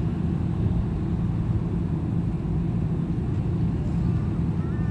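High-speed passenger ferry Asean Raider II running at speed, its engines making a steady, even low drone with rumble.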